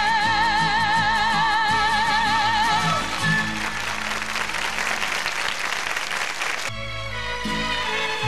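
A woman's powerful singing voice holding a long final note with vibrato over orchestral accompaniment, ending about three seconds in. Studio audience applause follows for a few seconds and is cut off abruptly by the instrumental intro of the next song.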